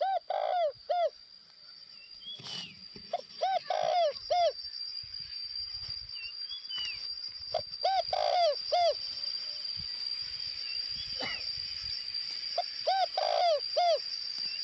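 Spotted dove cooing as a decoy (lure) bird: four phrases of three or four low, arched coos, spaced a few seconds apart. A steady high whine runs underneath, with a few faint chirps from other birds.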